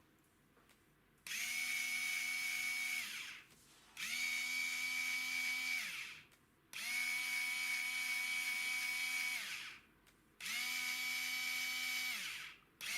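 3.6-volt cordless pistol-grip screwdriver run unloaded four times, about two to three seconds each, its whine rising as it spins up and falling as it stops. The motor runs steadily, but the owner suspects the gearbox at the output of turning poorly.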